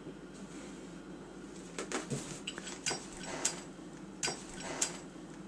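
About half a dozen sharp metallic clicks and clinks spread over a few seconds, from a Zippo-style lighter being handled and clicked.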